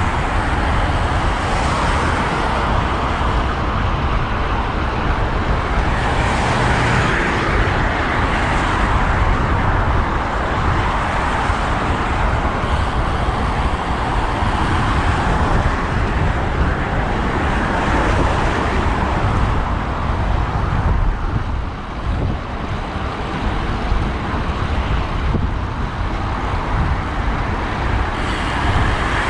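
Road traffic noise, with cars swelling past now and then, mixed with wind rushing over the microphone of a camera riding on a moving road bike.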